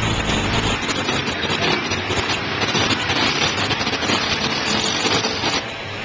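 Side-by-side UTVs and ATVs driving through a shallow creek: engines running under a steady rush of churned, splashing water. A low engine hum drops away about a second in, and the rushing eases shortly before the end.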